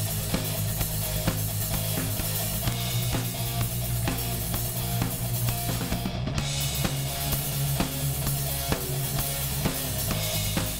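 Outro music: a steady drum-kit beat over a sustained bass line.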